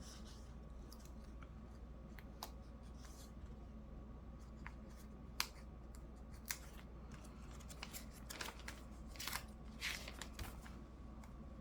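Faint handling of a paper planner and stickers: soft rustles and scratches with a few sharp clicks scattered through.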